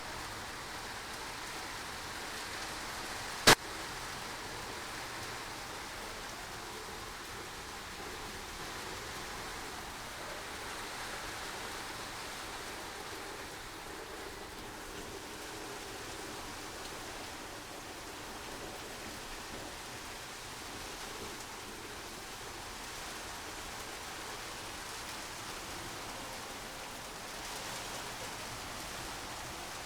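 Samsung WD136 front-loading washer-dryer running, with a steady rush of water into the drum, and one sharp click about three and a half seconds in.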